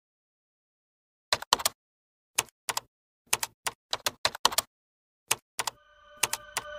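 Typing sound effect: an irregular run of sharp key clacks, several in quick pairs, as on-screen text is typed out. Near the end a set of steady ringing tones swells in, growing louder.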